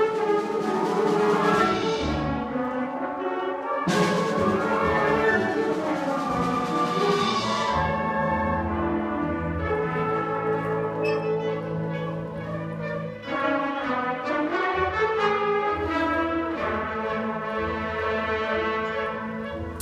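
School concert band playing: saxophones, clarinets and brass holding full chords over a steady bass line. Two ringing crashes sound near the start and again about four seconds in.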